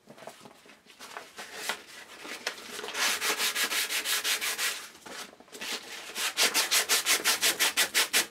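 Sandpaper held in the hand rubbing back and forth along a round hardwood tray handle to smooth it. The strokes are irregular at first, then from about six seconds in become quick and even, about five a second.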